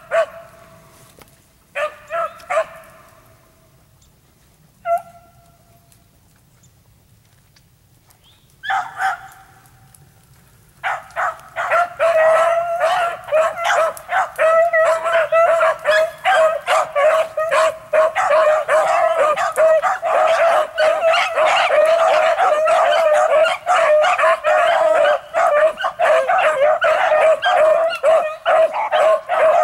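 A pack of beagles baying on a rabbit's trail. A few scattered bawls come at first, then after about ten seconds the pack opens up in continuous full cry, many voices overlapping.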